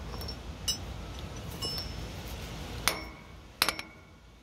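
Scattered metallic clinks and knocks of steel hand tools, a wrench with a pipe slipped over it for leverage and a hammer, against the aerator's chain-tensioner hardware. The knocks are sharpest about three seconds in, with two more shortly after, and a couple of brief high rings come earlier.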